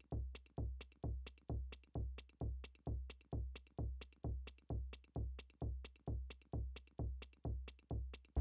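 Electronic music: a lone drum-machine kick drum on a steady beat, about two thumps a second, each with a short click on top.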